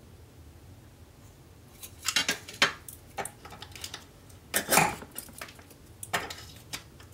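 Cane guillotine clipping a strip of Arundo donax tube cane to length: a string of sharp clicks, snaps and knocks from the blade lever and the cane against the metal base, starting about two seconds in, the loudest a little before the five-second mark.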